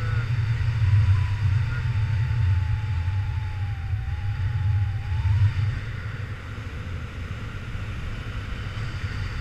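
Wind rushing over the microphone of a paraglider in flight: a steady, buffeting low rumble, with a faint whistle that wavers in pitch during the first half.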